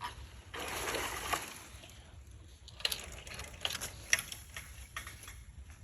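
Leafy thatch branches rustling as they are handled for about a second, then a run of sharp clicks and knocks from sticks being worked into a hut frame.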